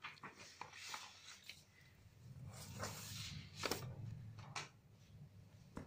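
Sheets of paper being moved and shuffled on a desk: faint rustling with a few light taps and clicks, busiest in the middle.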